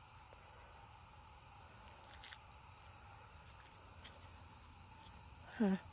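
Steady chorus of crickets and other night insects, a continuous high trilling. A brief voice sounds near the end.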